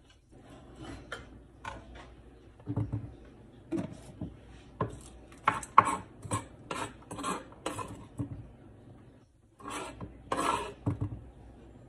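Metal spoon scraping and knocking on a plastic cutting board as chopped onion is gathered up: a quick run of sharp taps and scrapes, a short pause, then a longer rasping scrape near the end.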